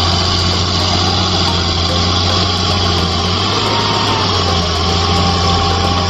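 Large farm tractor's diesel engine running steadily with a low, even drone while pulling an implement across a field.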